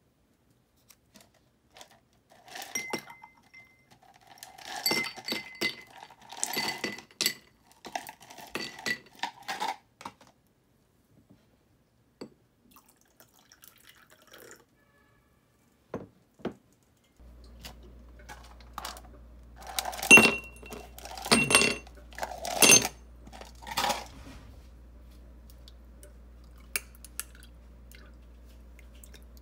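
Ice cubes dropped into drinking glasses, a run of clinks and knocks with a ringing glassy note. After a pause a second run of ice clinks follows over a faint steady low hum.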